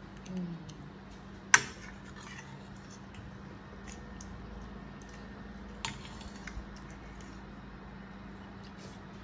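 Plastic cutlery clicking and scraping on plates while pancakes are cut and eaten, with scattered light ticks. A sharp clack comes about one and a half seconds in and a smaller one near six seconds, over a faint steady hum.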